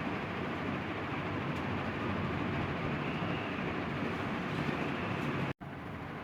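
Steady background noise with no distinct source. It breaks off in a momentary dropout near the end, then resumes slightly quieter.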